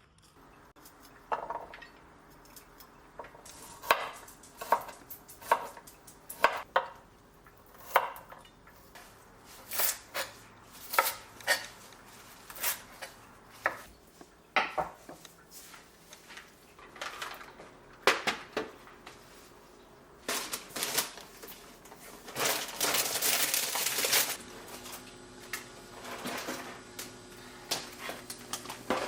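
Kitchen food-preparation sounds: irregular clinks and knocks of utensils, dishes and pots, with knife strokes on a cutting board, and a couple of seconds of steady hissing noise about three quarters of the way through.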